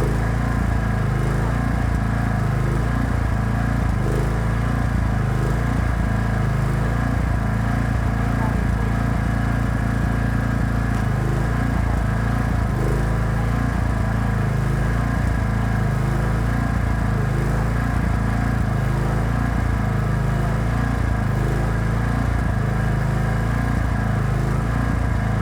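Engine-driven welding generator running steadily, with a slow regular pulse a little more than once a second.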